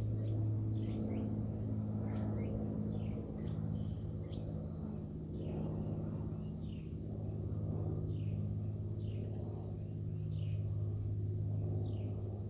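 Backyard songbirds chirping: short, high calls repeat every second or so. Underneath runs a steady low hum, louder than the birds.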